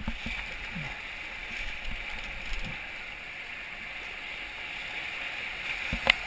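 Whitewater rapids rushing steadily around an inflatable raft, with paddle strokes splashing in the water. A single sharp knock sounds near the end.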